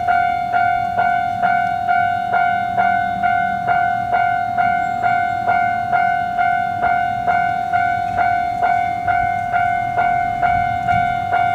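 Japanese railway level-crossing warning bell ringing its 'kan-kan' alarm: an even, ringing tone struck about twice a second without a break.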